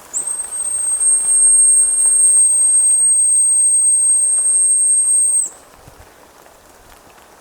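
A dog whistle blown in one long, steady, very high-pitched blast of about five seconds, the pitch bending up as it starts and dropping as it stops.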